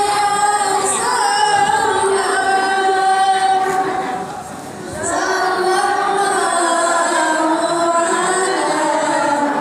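Female singing with music, in long held notes that break off briefly about four and a half seconds in, then carry on.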